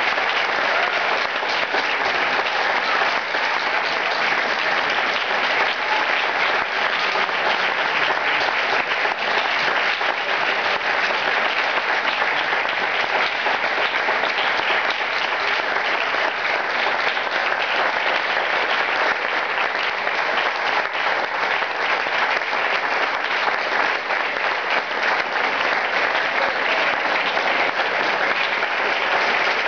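Audience applauding: many hands clapping in a dense, steady stream that holds an even level.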